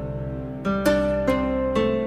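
Background music: a slow melody of plucked string notes, about two a second, each starting sharply and dying away.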